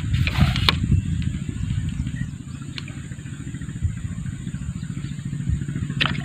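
A steady low drone like a small engine running, with brief rustling, splashy noises in the first second and a small splash about six seconds in as the fishing bait lands in the water.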